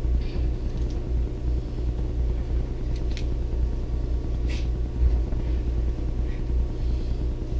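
A steady low rumble and hum, with a few faint soft clicks and squelches from fingers stirring soaked pellets and chopped lettuce in a small glass bowl.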